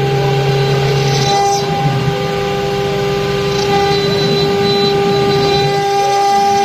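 Stone CNC router with two spindle heads running, giving a steady high whine over a rough grinding noise as it cuts marble.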